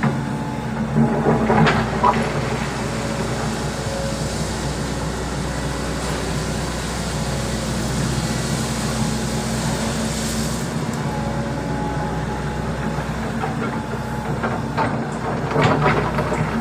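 Volvo EC200D excavator's diesel engine running steadily, with bursts of clattering about a second in and again near the end.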